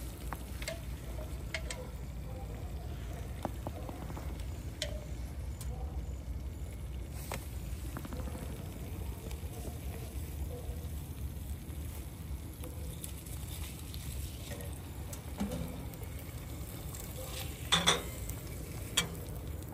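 An egg frying in a skillet on top of a wood stove: a soft sizzle with scattered small pops and ticks over a steady low rumble. A few sharp clinks against the pan come near the end.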